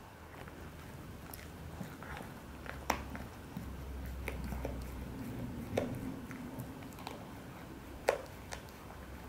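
Miniature pinscher chewing a homemade dried duck-neck treat, gnawing with a string of sharp bone crunches; the three loudest come about three, six and eight seconds in.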